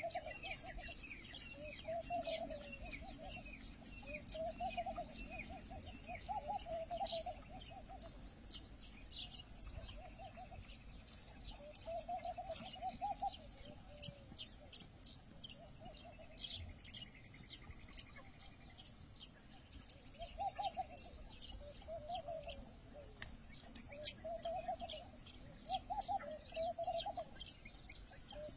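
Dove cooing, a short coo repeated every second or two, sometimes in pairs, with small birds chirping high and quickly throughout.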